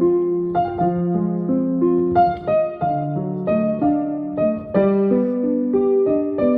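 Piano music: a melody of single notes, a new one every half second or so, over held lower notes.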